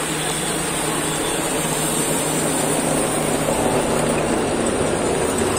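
Passing road-race traffic: a steady rush of racing bicycles and escort motorcycles going by on the road, growing fuller through the second half.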